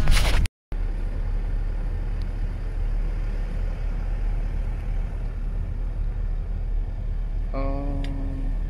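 Steady low rumble of a car running, heard from inside the cabin. The sound cuts out for a moment about half a second in, and a brief pitched tone comes near the end.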